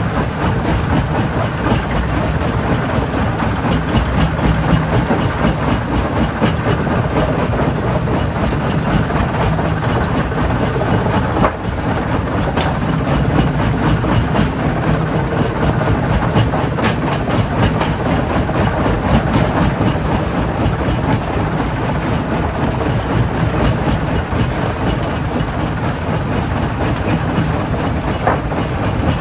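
Stone crusher plant machinery running, with a continuous dense clatter of rocks and many sharp knocks.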